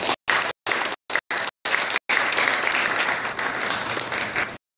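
Audience applauding in a small room, cut by several brief dropouts in the first two seconds, then clapping steadily until it stops just before the end.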